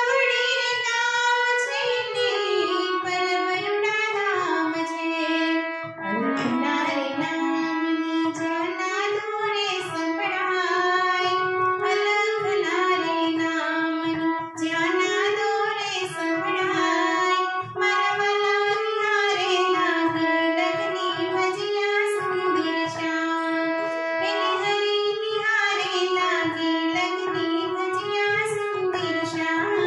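A woman singing a Gujarati song to her own harmonium accompaniment. Her voice glides and bends over the harmonium's held reed notes, and the music runs without a break.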